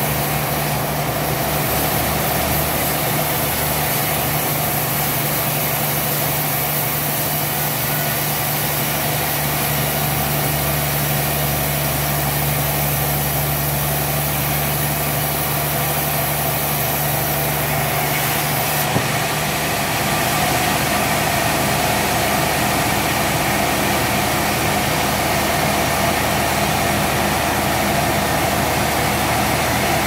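A large band sawmill running steadily, its machinery giving a continuous low drone with a noisy mechanical hum over it. The sound shifts slightly about two-thirds of the way in.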